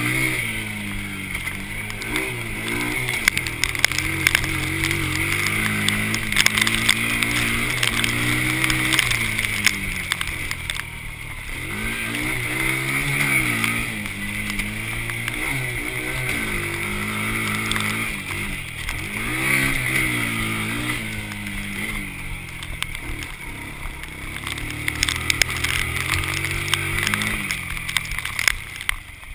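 Honda TRX90 quad's small single-cylinder four-stroke engine being ridden hard, its pitch rising and falling again and again with the throttle, under a steady rushing hiss. The engine eases off near the end.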